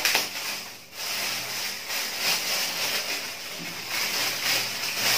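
Clear plastic bag crinkling and rustling as it is handled and pulled off a folded stand by hand, with the loudness rising and falling as it is worked.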